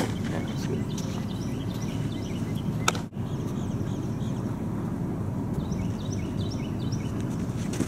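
A pitched softball smacks into a catcher's mitt once, about three seconds in, over steady low outdoor noise with birds chirping.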